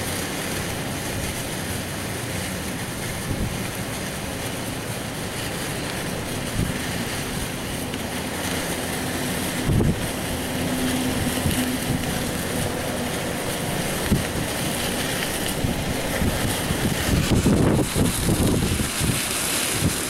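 Strong gusting wind in a snow squall, rushing and buffeting the microphone. The gusts grow stronger in the last few seconds.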